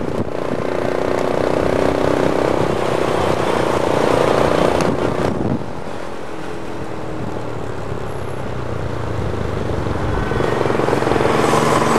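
Engine drone with wind and road noise from a moving vehicle carrying the recorder. The sound drops suddenly about halfway through, and a lower engine hum then builds toward the end.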